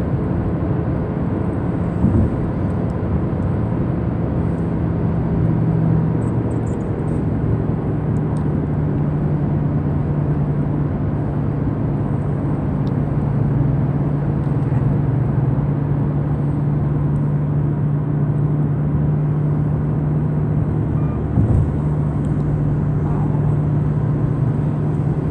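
Car cabin noise while driving at speed: a steady drone of tyres and engine with a steady low hum, heard from inside the car. Two brief thumps, about two seconds in and near the end.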